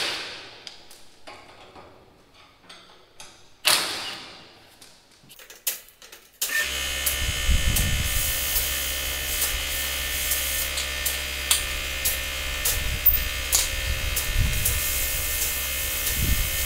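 A few sharp, ringing metal strikes as steel brackets are worked on a grain drill. About six and a half seconds in, a steady machine whir with a low hum and a high whine starts and keeps running, with occasional clicks and knocks over it.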